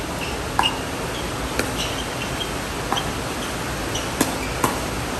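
Pickleball rally: a composite paddle hitting a hard plastic pickleball about five times, each hit a short sharp pop at uneven intervals, over a steady background hiss.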